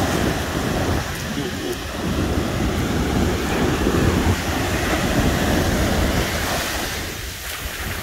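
Pacific Ocean surf washing up a sandy beach, foam spreading over shallow water, with wind rumbling on the microphone.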